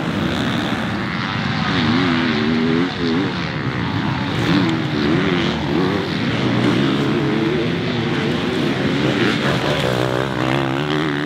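Motocross bike engines racing on the track, revving up and down again and again as the riders accelerate and shut off through the turns, with more than one engine heard at once.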